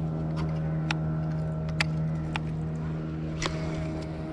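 Boat engine running steadily with an even low hum, with a few sharp clicks over it.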